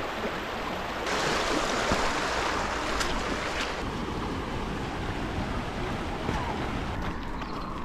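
Shallow stream water running fast over stones, a steady rushing that gets a little louder about a second in, with wind rumbling on the microphone.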